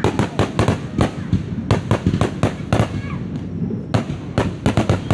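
Fireworks bursting in a rapid barrage: many sharp bangs and crackles, several a second, overlapping on a continuous low rumble.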